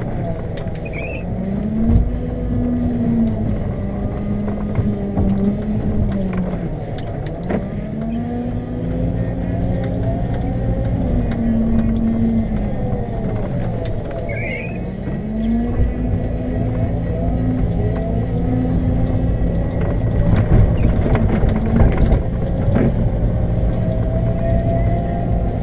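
Diesel engine of a Lundberg articulated loader running under load, its speed rising and falling several times as it plows snow. The steel plow blade scrapes along the road, with scattered clanks that bunch up about three-quarters of the way through.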